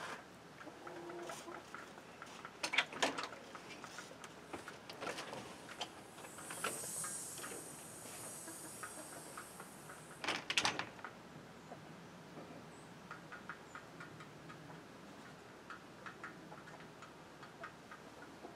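Footsteps on a wooden porch deck and a door being opened and shut, heard as scattered knocks: a cluster about three seconds in and a louder double knock about ten seconds in. Light ticking runs through it.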